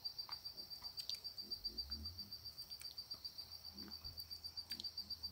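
An insect, cricket-like, chirping steadily in a high, even pulse of about seven beats a second, with a few faint short bird-like chirps over it.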